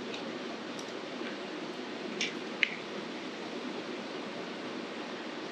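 Faint ticks of small metal set screws and a hex key handled between the fingers, with two sharper clicks a little over two seconds in, over a steady background hiss.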